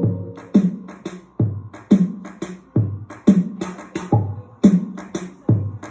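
Music: a bare drum beat with no melody or singing, deep booming kicks with short ticking hi-hats between them, repeating steadily.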